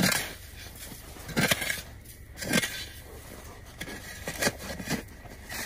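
Metal shovel cutting and scraping into packed snow, several short strokes about a second apart.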